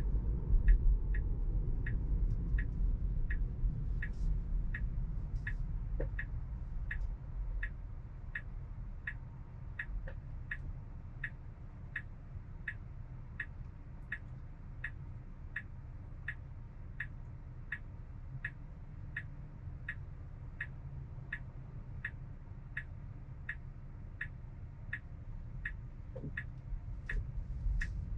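Tesla turn signal ticking steadily inside the cabin, about three ticks every two seconds, over a low road rumble that fades as the car slows in the first several seconds.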